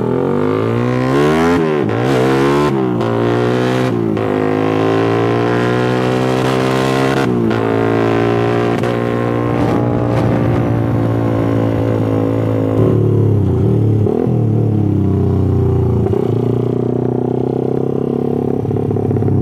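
Motorcycle engine revving: its pitch climbs and falls several times, with quick blips early on and two longer rises that drop off sharply, then it settles into steadier, lower running about 13 seconds in. The owner feels the engine needs its carburettor re-tuned because it is not running as it usually does.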